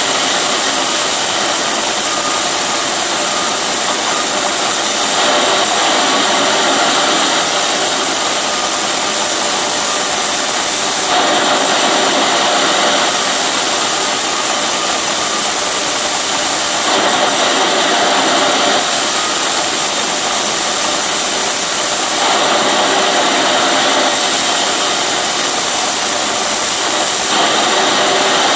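Benso TB 28 chainsaw running hard and steadily, its sound shifting every few seconds, as in a series of cuts.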